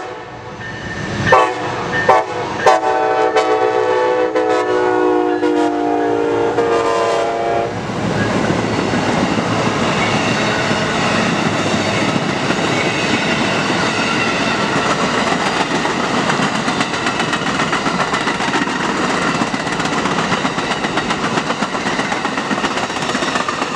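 Amtrak locomotive horn, an ALC-42 Charger's, sounding a few short blasts and then a long held chord that falls slightly in pitch and cuts off about eight seconds in. After it, the steady noise of the passenger train's wheels and cars rolling past.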